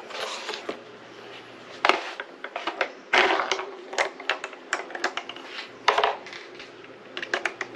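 Irregular clicking and knocking of small hard objects being handled, with several louder knocks spread through.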